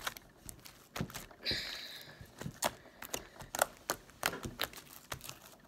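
Sticky slime mixed with fishbowl beads being squeezed and pulled in the hands, making irregular sharp clicks and pops, with a short rasp about one and a half seconds in.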